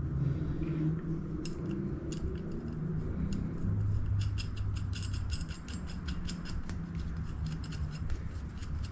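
Small, irregular metal-on-metal clicks as a steel bracket is fitted and turned by hand on the threaded end of a steel bar, over a low steady hum.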